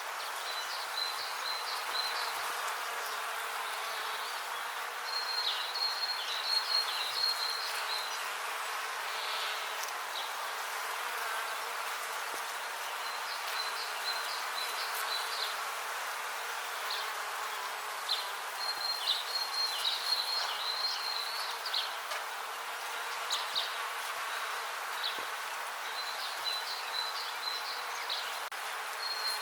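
Bees buzzing in a steady, continuous hum, with short bouts of high chirping every few seconds.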